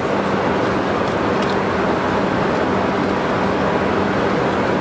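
ED75 electric locomotive standing at the platform with its on-board equipment running: a steady hum over a constant rushing noise.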